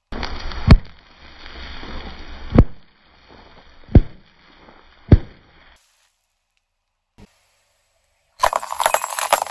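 Car tyre rolling over plastic bags of small foam balls: a rustling hiss with four sharp pops as the bags burst and the balls scatter. After a short silence, near the end, glass light bulbs crackle and shatter under the tyre.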